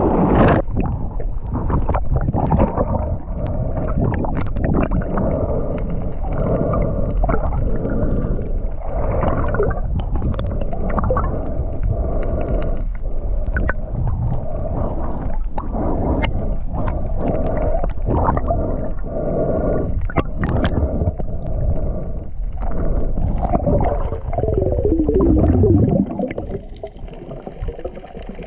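A splash as a diver goes into the sea, then muffled sound from a camera underwater: steady low rumbling and gurgling with scattered bubble clicks. A few seconds before the end, a whine falls in pitch and fades away.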